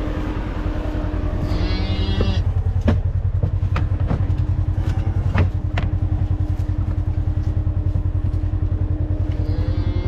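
A UTV side-by-side's engine idling with an even, rapid low pulse and a steady hum. A few sharp clicks or knocks come over it in the middle.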